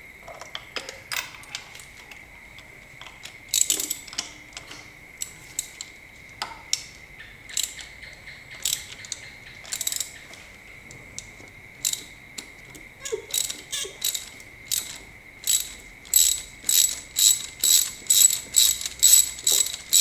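Hand ratchet on a flex-joint socket extension turning a spark plug out of a Toyota 2JZ-GTE engine, its pawl clicking. The clicks come in irregular short strokes at first, then settle into a steady back-and-forth rhythm of about two to three clicks a second near the end.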